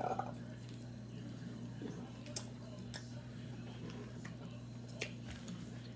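A grapefruit being peeled by hand with the fingernails and eaten: a sharp snap of peel right at the start, then a few faint, wet, separate clicks. A steady low hum runs underneath.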